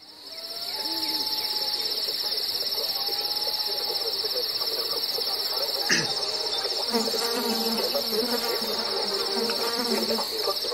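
Steady high-pitched insect chirring, like crickets or cicadas, fading in over the first second and holding throughout, with a single sharp click about six seconds in.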